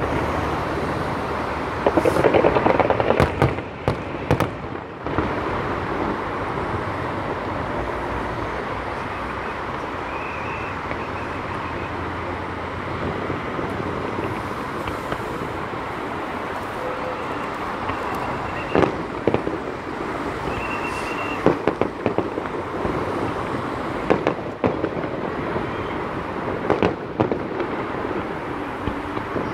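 Fireworks display: a dense, continuous crackle of bursting shells with sharp bangs scattered through, loudest about two seconds in.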